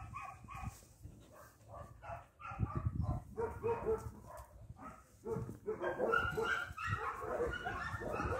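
A dog whining and yipping in many short, high-pitched calls. The calls grow louder and come almost without a break about two-thirds of the way in.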